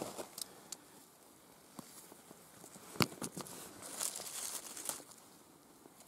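Hands rummaging through dry leaves, pine needles and loose soil, with sharp clicks of small stones knocking together; the loudest click comes about three seconds in, followed by a stretch of rustling.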